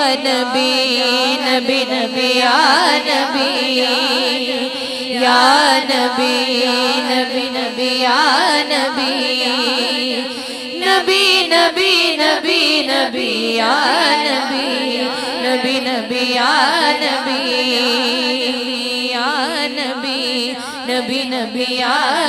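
Wordless, ornamented singing in a devotional naat: a woman's voice wavers up and down in melismatic phrases over a steady held drone.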